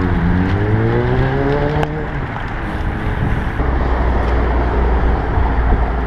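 Loud, steady wind rush on a bike-mounted camera's microphone while riding a road bicycle. A motor vehicle's engine rises in pitch as it speeds up during the first two seconds, and a deep wind buffeting rumble sets in about halfway through.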